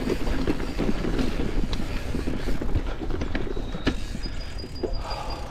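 Aluminium Santa Cruz 5010 mountain bike rolling over rough dirt trail: tyres rumbling, with irregular clicks and rattles from the chain and bike. A thin high whistle sounds for about a second near the end.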